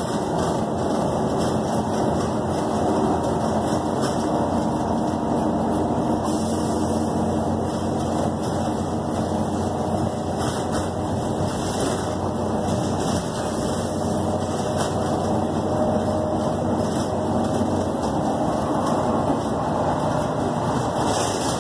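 City transit bus heard from inside the passenger cabin while driving: steady engine hum and road noise.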